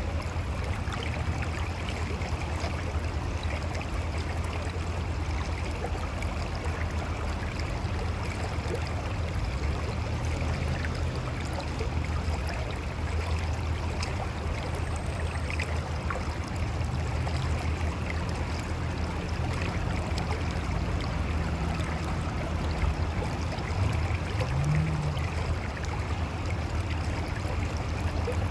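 Mountain river flowing over rocks: a steady rush of water with gurgling.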